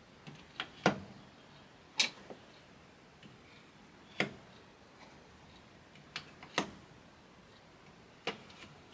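Steel bench chisels being slotted one at a time into the cut grooves of a wooden chisel rack, each landing with a sharp click or knock, the loudest about every two seconds, with lighter taps between, as they are tested for fit.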